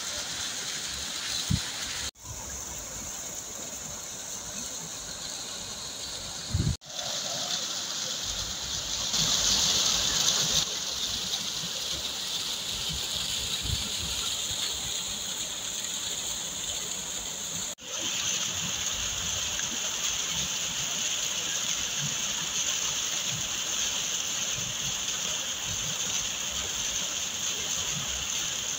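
Waterfall rushing steadily, a hiss of falling and splashing water. The sound breaks off for an instant three times, and after each break the rush changes a little in tone.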